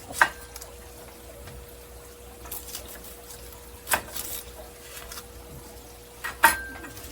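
Kitchen knife cutting the ends off an onion onto a cutting board: three sharp knocks, the first and last with a brief ring, and a few fainter taps between. A faint steady hum lies underneath.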